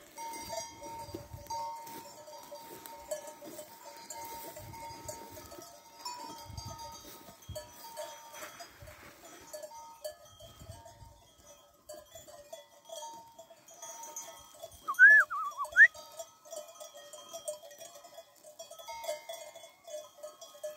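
Bells on a grazing flock of sheep clinking steadily. About fifteen seconds in comes one short, loud call that glides up and down in pitch.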